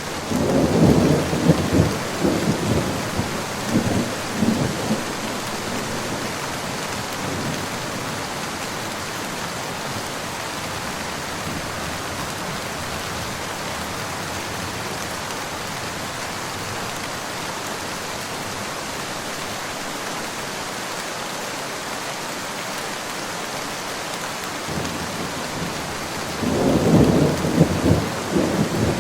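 Steady rain, with rolling thunder rumbling through the first few seconds and again near the end.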